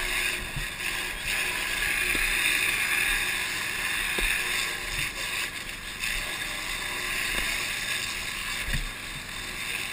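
Fire hose nozzles spraying water in a steady rushing hiss, with low rumbles of wind on the microphone.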